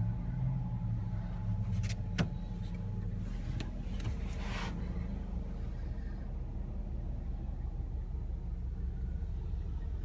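2017 Honda HR-V's 1.8-litre four-cylinder engine idling, a steady low hum heard from inside the cabin. There are a couple of sharp clicks about two seconds in and a brief rustle around four seconds.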